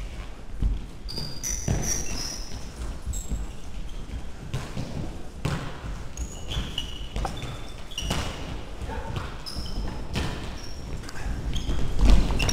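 Indoor football on a sports-hall floor: the ball thudding off feet and the floor, running steps, and shoes squeaking in short high chirps, echoing in the large hall.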